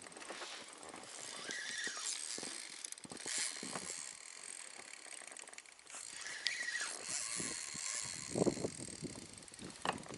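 Spinning reel being cranked, its gears and rotor whirring and clicking as line is wound in against a hooked fish, with a few louder bumps near the end.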